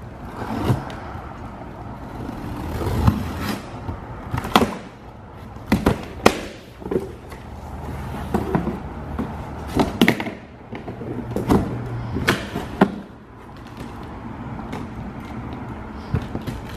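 Cardboard boxes being cut open and handled: scissors slitting packing tape, and flaps pulled back, with irregular knocks, scrapes and thumps of cardboard.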